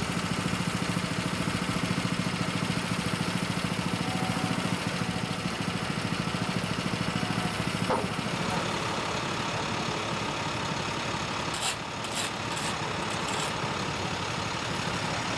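Heavy work vehicle's diesel engine idling steadily. About halfway through, its low even hum drops away and a rougher engine rumble carries on, with a few short sharp sounds near the end.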